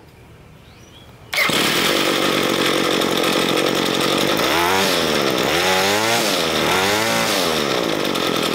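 Ryobi ES30 string trimmer's small two-stroke engine running loudly, coming in abruptly about a second in. It is revved up and back down three times in quick succession with its idle mixture screw set a quarter turn richer, and sounds much better for it.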